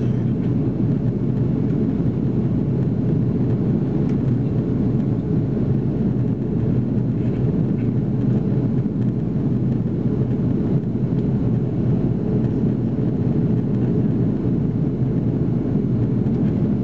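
Steady cabin noise inside an Airbus A330-343 in flight: a low, even rumble from its Rolls-Royce Trent 700 engines and the air rushing past the fuselage, heard from a window seat by the wing.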